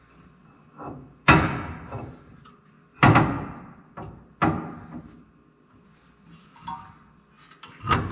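Heavy metal clunks as a new rear axle with a C-clip eliminator is shoved and worked into a Chevy 12-bolt axle housing. Four loud hits, each ringing briefly, come about a second in, at three seconds, a little after four and near the end, with lighter knocks between.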